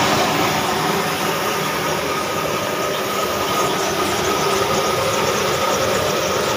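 Old stationary diesel engine running steadily and driving belt-driven milling machinery, a continuous fast mechanical clatter with a steady tone above it.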